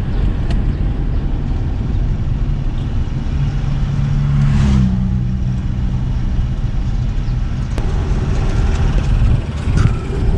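Motor vehicle on the move: a steady low engine and road rumble, with a brief whoosh about four and a half seconds in.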